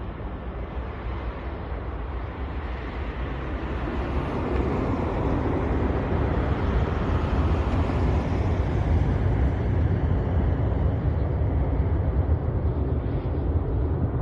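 Airbus A340-300 landing, its four CFM56 jet engines heard as a broad rumbling noise that grows louder over the first few seconds and then holds steady, with a faint high whistle in the middle.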